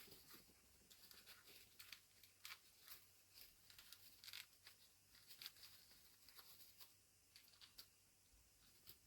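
Faint, scattered small clicks and rustles of hands fitting a vest onto a plastic action figure.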